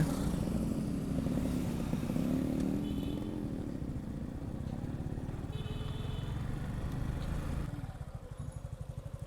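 Motorcycle engine running as the bike is ridden; about three-quarters through it drops to a quieter, low, evenly pulsing putter as the bike slows.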